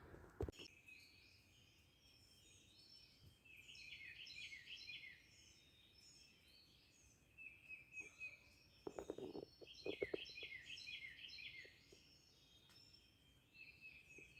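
Faint birdsong: repeated high chirps and quick trills, with a few soft knocks about nine to ten seconds in.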